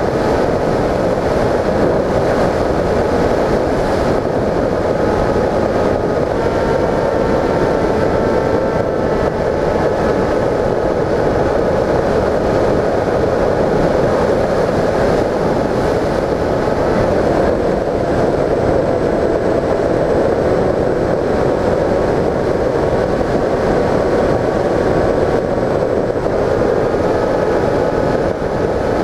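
Onboard sound of a Bixler 1.1 RC glider in flight: a steady rush of wind over the airframe with the stock electric motor and propeller whining faintly, the pitch of the whine drifting a little.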